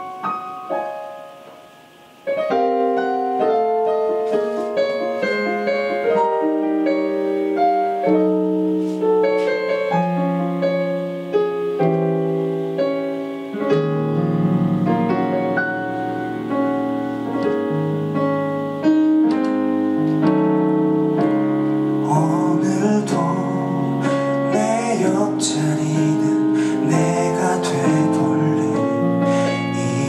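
A live ballad's instrumental interlude: after a brief pause about two seconds in, slow piano chords and melody notes play on their own. A voice comes back in over the piano in the last several seconds.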